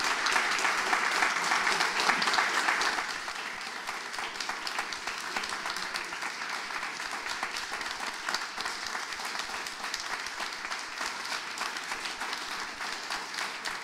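Audience applauding, a dense patter of many hands clapping; loudest for about the first three seconds, then dropping to steadier, quieter applause.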